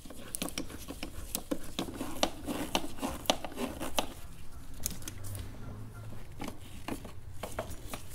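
Worm-drive hose clamp on a silicone intake coupler being tightened with a flat-blade screwdriver: a run of irregular small metallic clicks and ticks as the screwdriver turns the clamp screw.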